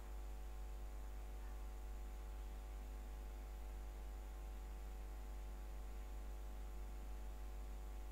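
Steady low electrical mains hum with a ladder of even overtones, unchanging throughout: hum picked up by the microphone and recording chain.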